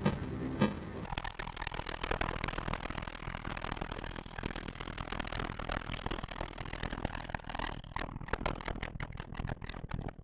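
Cello run through heavy distortion. In the first second there are a few pulsing, pitched notes, then a dense, harsh crackle with scraping. In the last couple of seconds it thins into separate crackles before cutting off.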